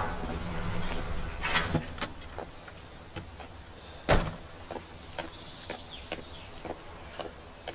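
A car's engine hum dies away, then about four seconds in a car door shuts with a single sharp bang. Light scattered ticks come before and after it.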